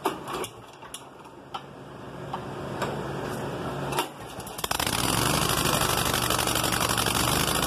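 Toro ProLine 32 walk-behind mower engine cold-starting on choke with the throttle up: a few light clicks and knocks, then the engine catches about four and a half seconds in and runs steadily.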